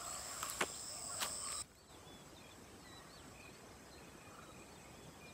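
Outdoor insect chorus shrilling steadily with a few sharp handling clicks, cut off abruptly about one and a half seconds in. Then a quieter rural background with a few faint bird chirps.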